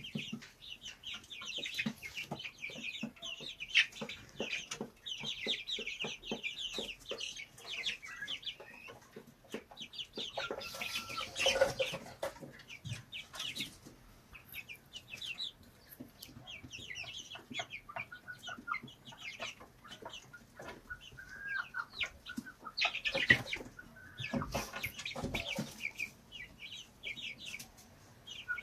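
Domestic hens and young chicks calling in a coop. A dense run of rapid, high peeps fills the first several seconds, then scattered clucks and peeps follow, with louder calls about eleven and twenty-three seconds in.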